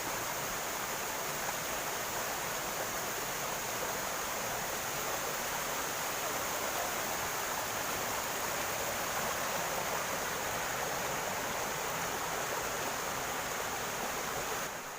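Waterfall: a steady rush of falling, splashing water that dips briefly near the end.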